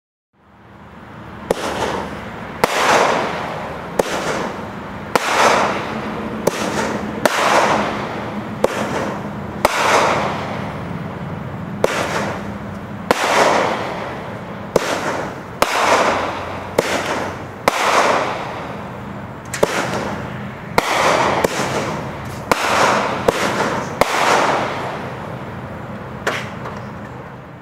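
Black Cat 'Blue on Blue' 10-shot consumer fireworks cake firing its flaming-ball shots: a series of sharp reports, each followed by a fading hiss, roughly one a second.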